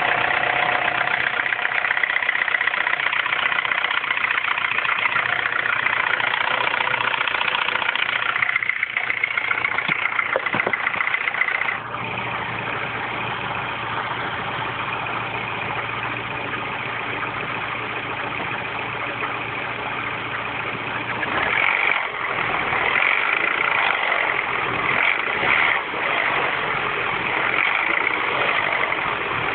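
R56 Mini Cooper S 1.6-litre turbocharged four-cylinder engine idling cold, making the cold-engine noise that remains after its timing chain tensioner was changed. The loudness steps down about twelve seconds in and turns uneven again about ten seconds later.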